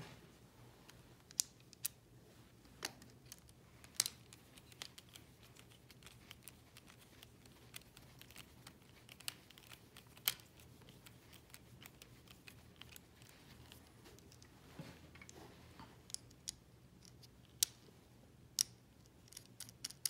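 Scattered small sharp clicks and taps of a screwdriver driving screws into a plastic rope-lanyard device's sheaves, irregular and spaced out, with rope and plastic being handled in between.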